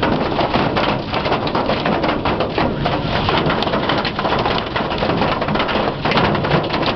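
Hail and rain pelting down in a thunderstorm: a dense, steady hiss dotted with many sharp strikes of hailstones hitting hard surfaces.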